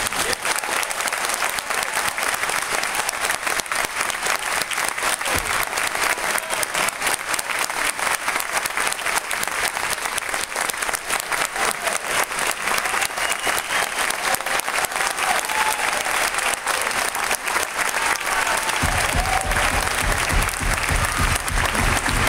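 Audience applauding after a choir's song: a dense, steady patter of many hands clapping. A low rumble joins in near the end.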